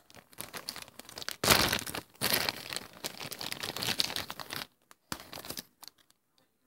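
Close rustling and crinkling with scattered clicks, loudest through the middle few seconds, right against the microphone.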